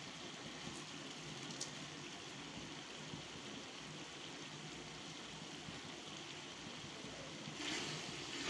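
Chicken masala sizzling softly in a steel pot, a steady hiss. About a second before the end, a spoon starts scraping against the pot as it is stirred.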